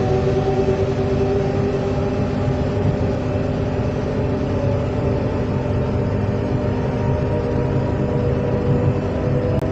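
Z 20900 electric multiple unit running, a steady rumble with several whining tones from the traction equipment that creep slightly upward in the first couple of seconds.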